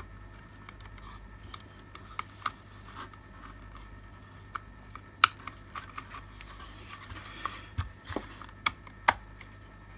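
Plastic parts of a security light housing being handled and fitted back together: scattered clicks and light knocks with some scraping, two sharper clicks about five and nine seconds in.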